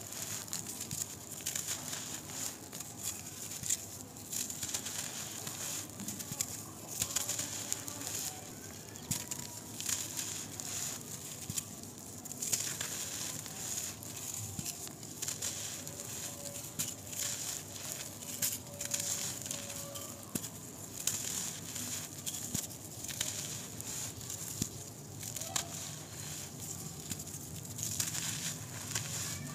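Clumps of dry, gritty brown dirt crushed and crumbled by hand, with a continuous irregular crunching and crackling as the grains break apart and trickle down.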